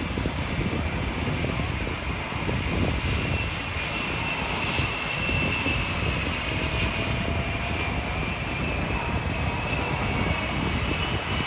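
Jet engines of Blue Angels F/A-18 Super Hornets running at ground power as they taxi: a steady high whine over a low, noisy rumble, the whine drifting slightly in pitch.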